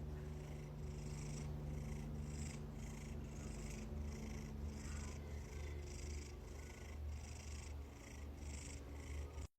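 Domestic cat purring steadily, close to the microphone. A low rumble runs under a hissy layer that pulses about twice a second, and the sound cuts off abruptly near the end.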